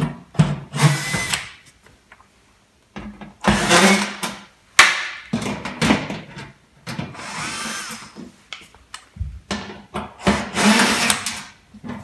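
Cordless drill-driver whirring in several short bursts as it backs out the screws of a washing machine's rear panel, with a few clicks between bursts.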